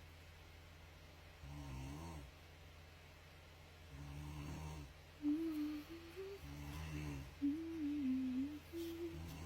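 A person snoring, three snores about two and a half seconds apart, each a low, pitched rasp. Wavering pitched tones fill the gaps between snores in the second half.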